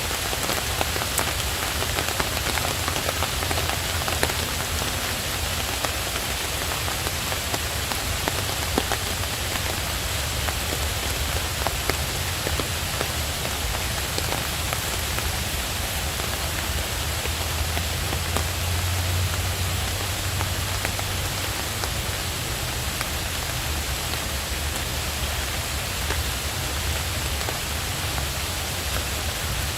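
Steady rain mixed with a crackling wood fire, with sharp little pops and clicks scattered throughout.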